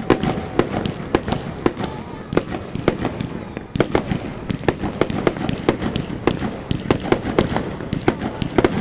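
Fireworks going off in a rapid, irregular string of sharp bangs and crackles, several a second.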